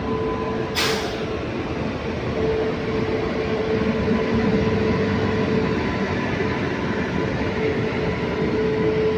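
Superfast express train hauled by a WAP-7 electric locomotive, running on the rails with a steady rumble and a steady high hum. There is a sharp crack just under a second in.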